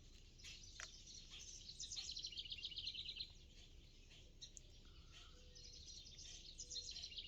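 Faint songbird trill: a quick run of rapid repeated notes, falling slightly in pitch. It comes twice, each lasting about a second and a half, about two seconds in and again near the end.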